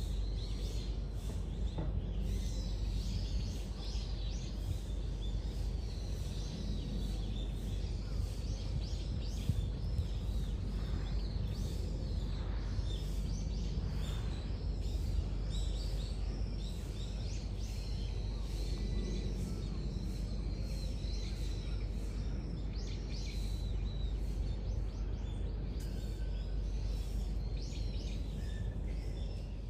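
Outdoor ambience: a steady low rumble with small birds chirping and calling throughout.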